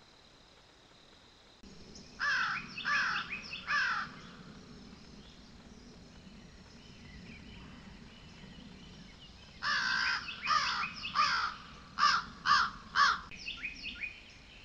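Crow cawing: three harsh caws about two seconds in, then a run of about eight caws starting about ten seconds in.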